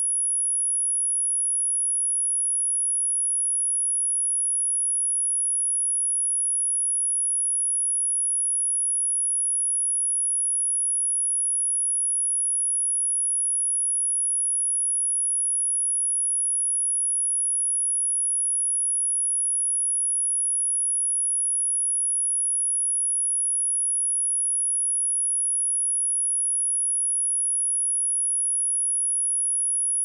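A pure 10,307 Hz sine-wave test tone: a single steady, very high-pitched whistle at constant level, played to test a speaker or shake dust and water out of it.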